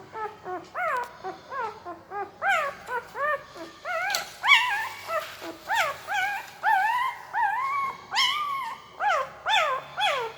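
Newborn pariah puppy whimpering and squeaking in its sleep: a fast run of short, high-pitched squeals that rise and fall in pitch, two to three a second, with a few longer drawn-out cries in the second half.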